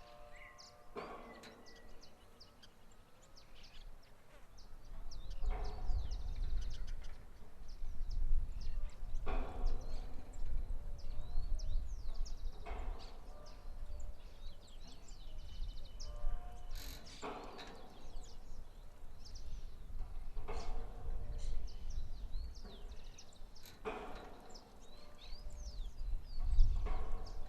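Windmill creaking in a regular cycle, one pitched creak about every three and a half seconds, over gusting wind rumble on the microphone. Birds chirp throughout.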